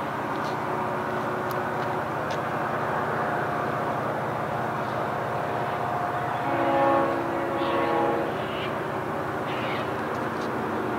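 Approaching diesel freight train still out of sight, giving a steady rumble. A multi-note locomotive horn chord sounds for about two seconds, starting about six and a half seconds in.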